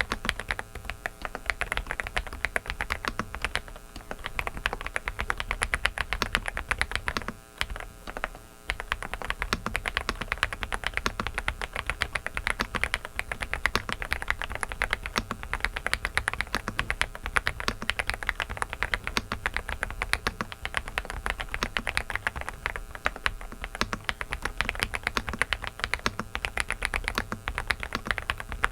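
Typing on a Dareu mechanical keyboard: a fast, continuous stream of keystrokes with a brief pause about seven to eight seconds in. A steady low noise from a faulty microphone runs underneath.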